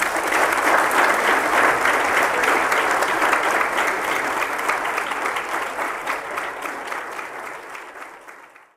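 Audience applauding: a dense clatter of many hands clapping that builds in the first second, holds, then tapers and dies away near the end.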